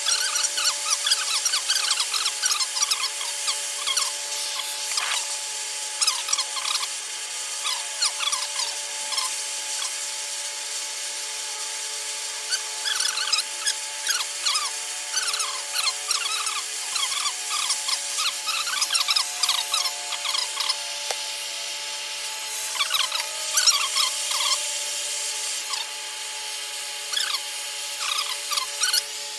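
A metal spoon scraping and clinking against the inside of a small iron melting pot as it skims dirt and slag off molten scrap lead. The strokes come in short scratchy runs with pauses between them, over a steady hiss from the torch heating the pot.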